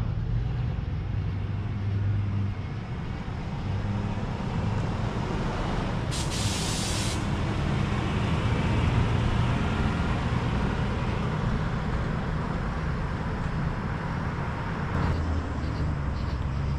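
A lowered Chevrolet pickup's engine running as it drives past, the rumble swelling a little as it goes by. About six seconds in comes a sharp hiss of air lasting about a second.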